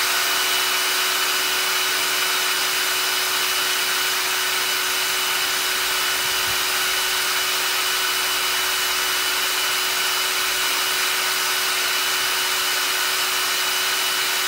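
Einhell TE-CD 18/50 Li BL brushless cordless drill-driver running with no load at full trigger in its second, high-speed gear: a steady motor whine with a high tone over it, the chuck holding a constant speed of about 1,760 rpm.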